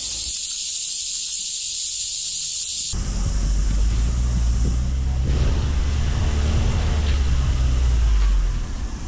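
Insects buzzing steadily in the bush. About three seconds in this cuts to the low rumble of a Mitsubishi Delica L300 van grinding slowly down a rough dirt 4WD track, picked up by a camera mounted on the van, easing off near the end.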